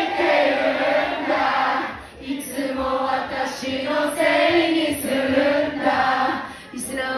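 A female singer performing live through a club PA, with many voices from the crowd singing along. The singing comes in phrases, with short breaks about two seconds in and near the end.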